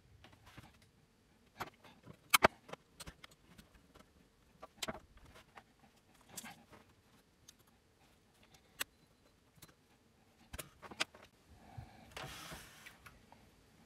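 Scattered clicks, knocks and light rattles of hands handling an opened cassette deck's metal chassis on a workbench. The loudest is a sharp pair of knocks a little over two seconds in, and there is a brief scraping rustle near the end.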